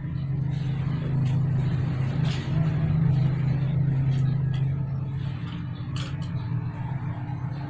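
A motor vehicle engine running nearby, swelling over the first few seconds and easing off after about five, with a few sharp metal clicks of a hand tool on the motorcycle's rear wheel hub.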